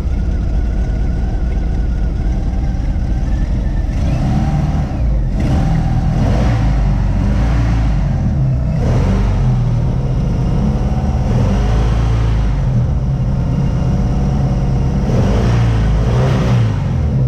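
Inboard boat engine running in neutral with the cover off, revved up and let back down several times. The engine is being run to check that a newly fitted cooling-water hose seats and holds.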